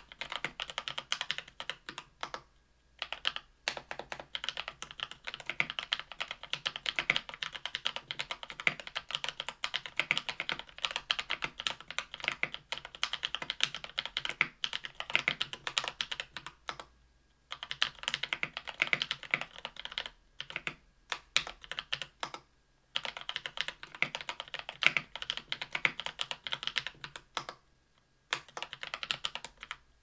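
Fast typing on a KBDfans Tofu 65% aluminium mechanical keyboard with lubed (Krytox 205g0) Drop Holy Panda tactile switches, an aluminium plate and GMK keycaps: a dense run of keystrokes broken by a few short pauses.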